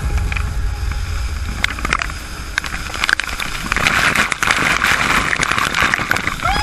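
Waterfall pouring into a plunge pool, heard from inside the spray: a deep rumble with crackling and splattering of water hitting the camera. It grows denser and louder about four seconds in.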